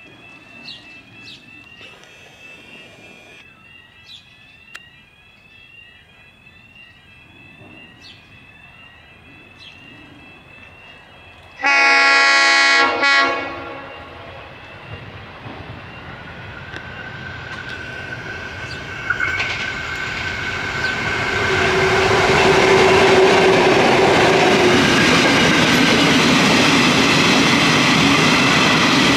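Birds chirp at first. About twelve seconds in, a freight train's diesel locomotive sounds one loud horn blast of about a second and a half. The train then approaches, growing steadily louder, and its long line of hopper wagons runs past on the rails.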